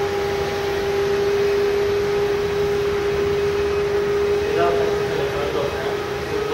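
Boeing 777 jet climbing out after takeoff: steady jet noise with a steady droning tone, heard through window glass.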